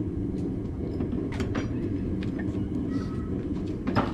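Blacksmith's forge running with a steady low rumble, with a few light metallic clinks of tools about a second and a half in and again near the end.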